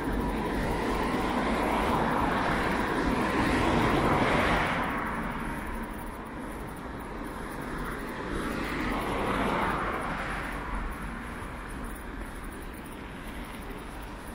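Cars driving past on a city avenue, their tyre and engine noise swelling and fading away. One passes loudest about four seconds in and another around nine to ten seconds in, over a steady traffic hum.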